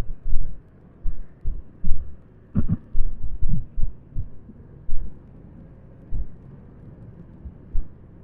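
Irregular low thumps and buffeting on an action camera's microphone during a motorcycle ride, over a faint steady background. The thumps come thick and fast in the first five seconds and thin out after that.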